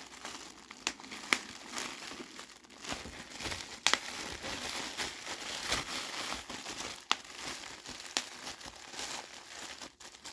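Bubble wrap being squeezed and popped by hand: continuous crinkling of the plastic with about half a dozen sharp pops, the loudest a quick double pop about four seconds in.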